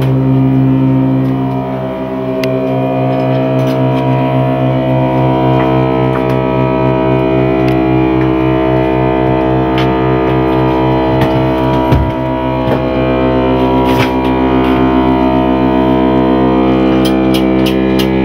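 Metal pipes of the Schyven pipe organ sounding a loud, sustained chord from inside the organ case, with a fast, even pulsing in the low notes. Sharp clicks come in a few times, more of them near the end.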